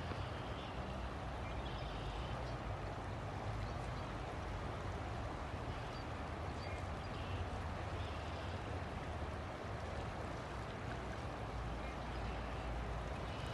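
River water flowing: a steady, even rushing with a deep low rumble beneath it.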